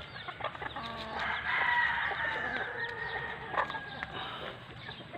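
A rooster crowing once, one long held call starting about a second in, with hens clucking around it.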